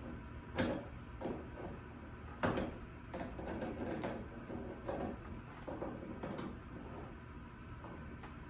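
Irregular metal clicks and clinks of a wrench and socket tightening the set screws on a garage door torsion spring's winding cone, the loudest knocks about half a second and two and a half seconds in.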